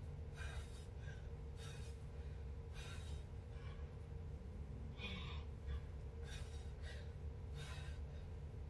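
A woman's sharp breaths, about one a second, in rhythm with the twists of a Russian twist exercise, over a steady low hum.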